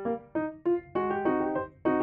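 Background piano music: a light melody of separate struck notes, turning to fuller chords about a second in.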